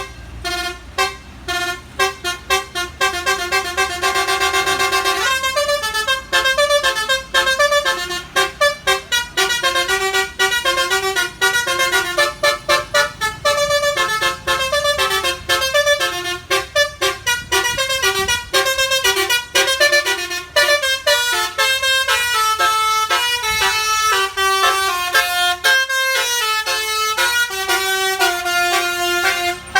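Bus basuri telolet horn, a multi-trumpet musical air horn, playing a long fast melody of short staccato notes, with one held chord a few seconds in, then on through quick changing phrases.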